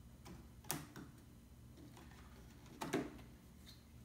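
Sharp plastic clicks and taps from a 2003 Lincoln Navigator instrument cluster's plastic housing and black surround being handled and pressed into place. There is a loud click under a second in, a weaker one just after it, and a small group of clicks near three seconds.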